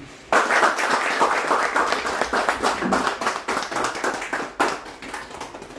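A small group of people clapping, starting suddenly and thinning out to a stop near the end.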